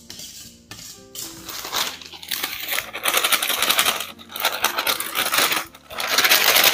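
Background music over a dense, scratchy rattle of mixing work: a hand whisk beating cake batter in a stainless-steel bowl, and flour being slid off a paper sheet into a stand-mixer bowl.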